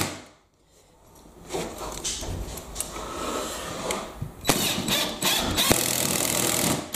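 DeWalt cordless drill driver driving a screw through a metal electrical back box into breeze block. The motor starts up about a second and a half in and runs louder over the last couple of seconds as the screw goes in.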